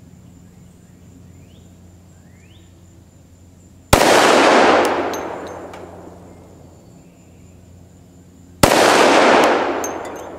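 Two shots from a Glock 20 10mm pistol, about five seconds apart, each followed by a long echo dying away. Both are misses on the steel pig target, one high and one low, by the shooter's own uncertain reckoning.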